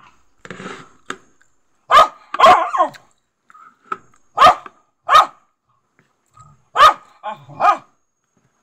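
A dog barking loudly, about seven sharp barks in irregular groups of one to three.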